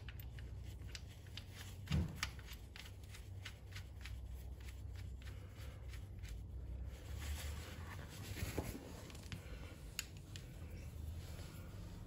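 Hands working at a motorcycle engine's oil filter mount: soft rubbing and handling noise with scattered light clicks, and a dull knock about two seconds in.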